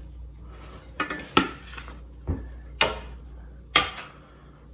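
Metal bench scraper clacking and scraping against a stone countertop while scooping wet, floured bread dough into a loaf shape: about five sharp clacks, roughly a second apart.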